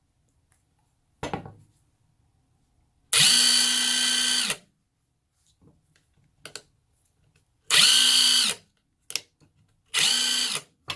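Tenwa cordless half-inch impact wrench run on its low speed setting, triggered three times: each time the motor whines up to speed, holds a steady pitch for about a second and winds down. A small click comes about a second in.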